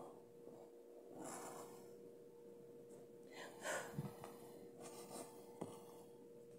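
A person's faint breaths, a few soft puffs, over quiet room tone with a faint steady hum, and a couple of light taps in the second half.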